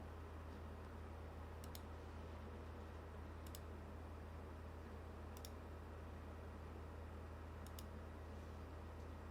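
Four quick double-clicks of a computer mouse, about two seconds apart, over a steady low electrical hum.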